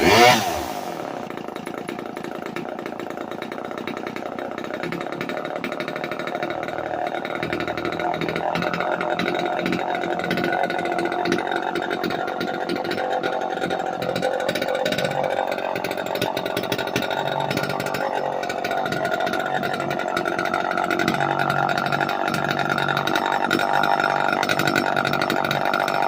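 1971 Homelite XL-1 single-cylinder two-stroke chainsaw engine running steadily after starting.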